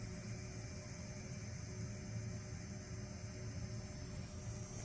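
A steady low hum with a few faint steady tones above it, even in level throughout.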